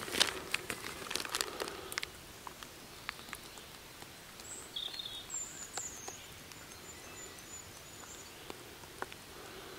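Quiet woodland ambience with a few birds chirping briefly near the middle, after a short spell of rustling and clicks in the first two seconds.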